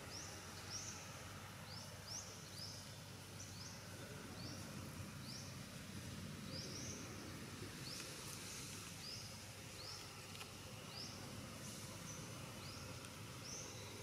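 Repeated short high chirps, each rising quickly in pitch, about one or two a second, over a steady low outdoor rumble.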